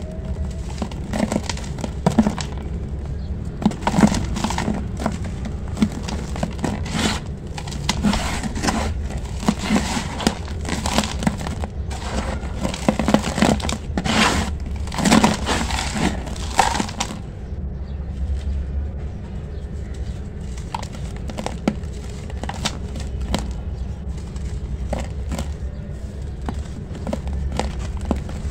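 Dry sand-cement slab crumbled and crushed by hand in a basin: a dense run of crunching and crackling, busiest from about eight to seventeen seconds in, then sparser, softer crumbling and rubbing of the powder. A steady low hum runs underneath.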